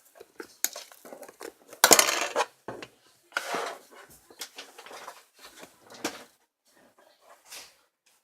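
Small hard objects clinking and clattering in a series of short clicks, with the loudest clatter about two seconds in.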